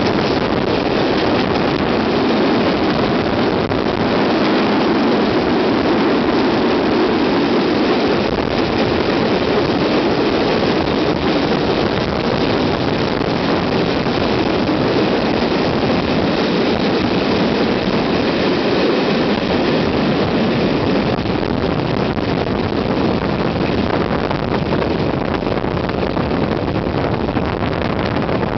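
Steady rush of wind on the microphone mixed with the running noise of a moving passenger train, heard from an open carriage window.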